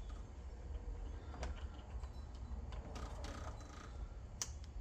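Small clicks and handling noises of a smart lock's wire-harness plug being pushed gently into its socket, with a sharper click near the end as it seats.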